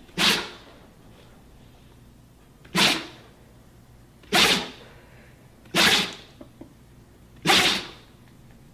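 A dog sneezing five times in a row, about one sharp sneeze every second and a half: a sneezing fit.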